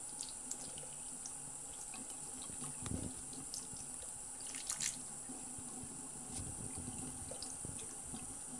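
Thin stream of tap water running from a bathroom faucet into the sink basin, splashing over a kitten's head and paws, with small splashes and drips throughout; the sharpest splashes come about three and five seconds in.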